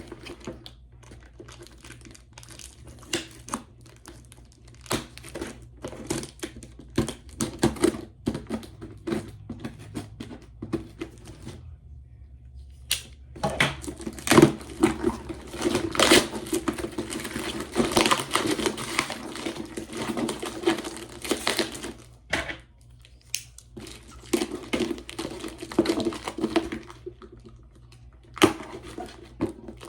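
A cardboard shipping package being opened by hand: tearing, crinkling and rustling of cardboard and packing material, with many scattered clicks and knocks.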